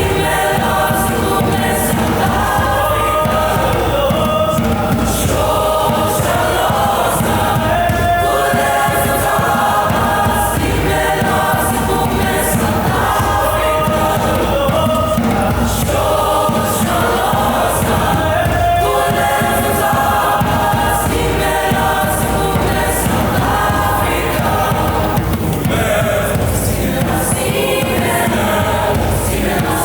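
A student choir singing continuously, with sustained notes changing pitch every second or so.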